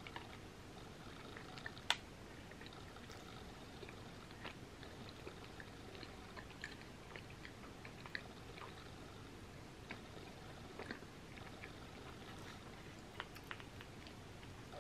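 Quiet close-up chewing of a mouthful of cherry pie, with scattered small wet mouth clicks and one sharper click about two seconds in. Near the end a few clicks as a spoon digs into the pie in its foil tin.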